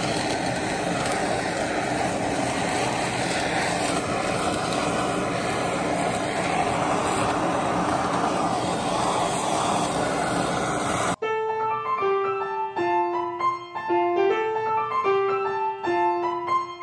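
Handheld Bernzomatic torch running with a steady flame as it sears a beef roast in a cast iron skillet. It cuts off abruptly about eleven seconds in, and solo piano music follows.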